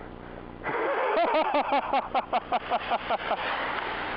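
Skis sliding and scraping over hard-packed snow, with wind noise on the camera microphone, starting under a second in. A fast rhythmic chatter of about five pulses a second runs through the middle.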